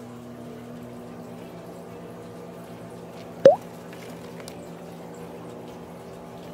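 Microwave oven running with a steady hum. About halfway through, a chick still hatching from its egg gives one short, loud peep that rises in pitch.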